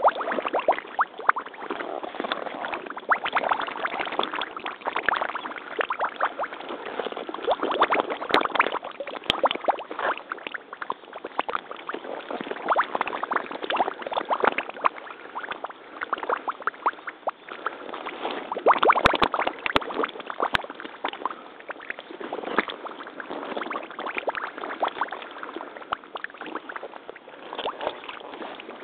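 Mitsuuma crotch-high rubber waders wading through shallow muddy pond water: continuous irregular splashing and sloshing of water around the boots with each step.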